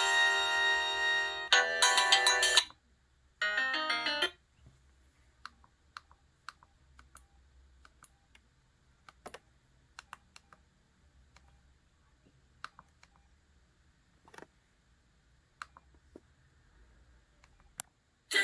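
Samsung SGH-X497 ringtone melody playing and cutting off about two and a half seconds in. A short burst of tones follows, then a long string of sharp, irregularly spaced clicks from the phone's keypad buttons being pressed.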